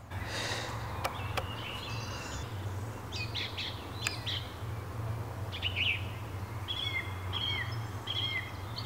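Several birds singing and calling: short chirps and whistled notes, a few with a quick falling glide near the end, over a steady low rumble.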